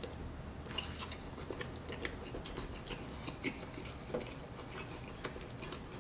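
A person biting into and chewing a mouthful of fried chicken sandwich, close to the microphone: soft, irregular crunches and wet mouth clicks.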